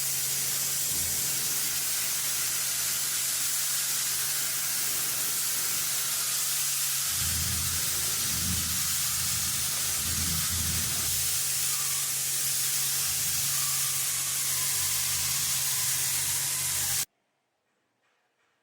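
Steady loud hiss of paint being sprayed, over a low steady hum, cutting off suddenly near the end.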